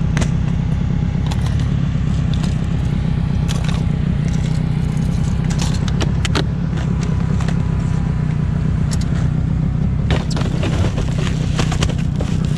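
Outboard motor running steadily with the boat under way, with scattered short knocks and taps over the drone.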